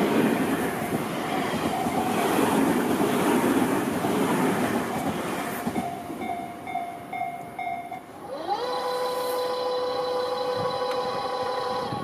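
Electric commuter train of the Tobu Tojo Line running past on the rails, a loud, even rumble that fades about six seconds in. Short repeated ringing tones follow, then a long, steady tone that rises in pitch as it starts and cuts off suddenly at the end.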